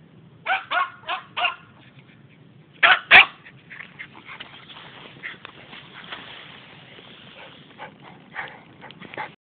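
Small dog barking: four quick high yips about half a second in, then two louder sharp barks around three seconds in, followed by fainter scattered yips.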